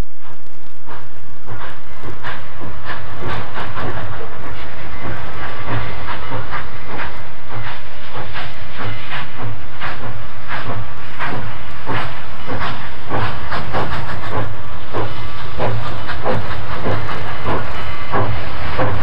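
Illinois Central 4-8-2 Mountain-type steam locomotive working steam as it pulls out of the yard: a regular beat of exhaust chuffs, about two a second, over a hiss of steam.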